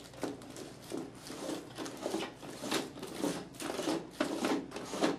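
Plastic dome bubble of a dome CCTV camera, still in its protective film, being handled and fitted back onto the camera's base: irregular small clicks and rustles of plastic and film, a few a second.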